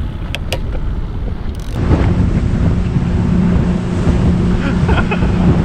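Wind buffeting the microphone over choppy lake water with a couple of sharp clicks, then, about two seconds in, a fishing boat running fast under its outboard motor: a steady engine tone under wind and spray noise.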